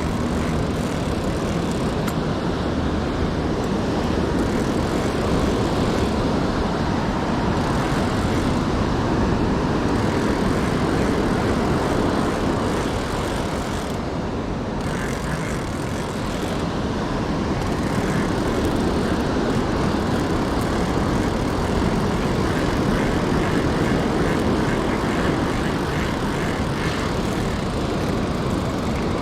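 Steady rushing noise of wind and surf at the shore, loud and without a clear rhythm.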